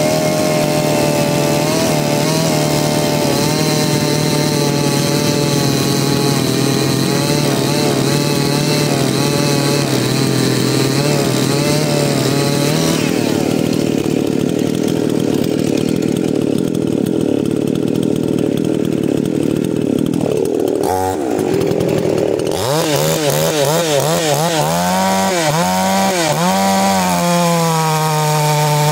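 Two-stroke chainsaw running loudly while cutting wood. The engine note dulls about halfway through, then near the end it wavers up and down in pitch as the saw works.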